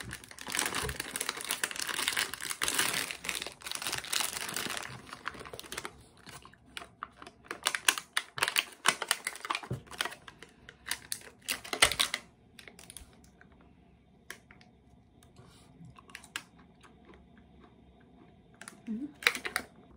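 Plastic wrapper of a packet of mini yakgwa being opened and handled, with dense crinkling for the first few seconds. A run of sharp crackles and clicks follows as the cookies are pulled out of the plastic, then quieter rustling with a short crackle near the end.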